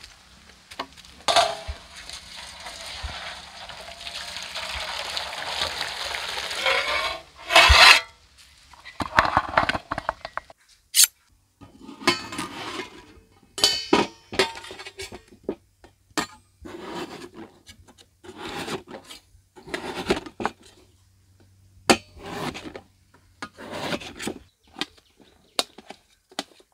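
A large steel cooking pot being handled, with a rushing noise that builds for several seconds and a loud clank about eight seconds in. Then knives click and scrape on stainless steel plates as potatoes are peeled and chopped, with metal clinks.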